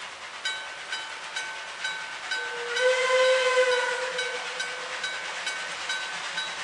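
A level-crossing bell ringing steadily, about two strokes a second. It is joined about two and a half seconds in by one long blast of steam whistle from an approaching narrow-gauge NA-class steam locomotive.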